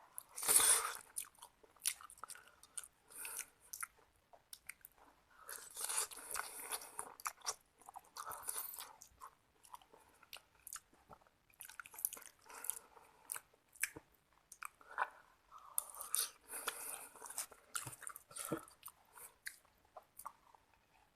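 Close-miked chewing and biting of seblak, the Indonesian spicy dish of soft boiled crackers, coming in irregular noisy bursts.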